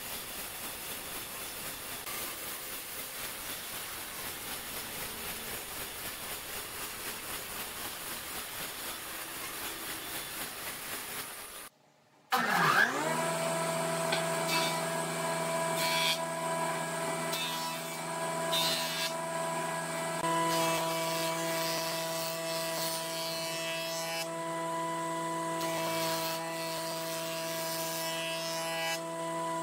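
A band saw running with its blade in a weathered round log, a steady noise with an even pulse. About twelve seconds in it cuts off. A Nisino combination jointer-planer then starts up and runs with a steady hum of several tones, with short louder bursts as a round log is fed across its cutterhead.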